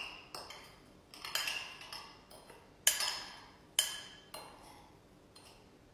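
Utensil clinking and scraping against a small bowl while a dry spice rub is stirred: separate sharp clinks, a few louder ones about a second apart among fainter taps.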